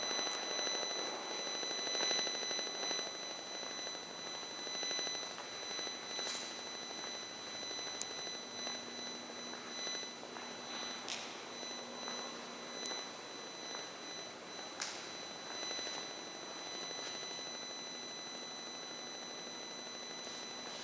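Quiet room tone: a steady high-pitched electronic whine over faint hiss, with soft bumps and a few sharp little clicks.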